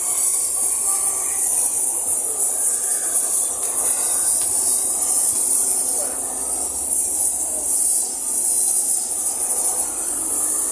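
Steady loud hiss that holds level throughout.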